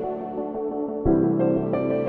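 Background music: slow, calm instrumental music of held chords, with a new chord coming in about a second in and two higher notes following.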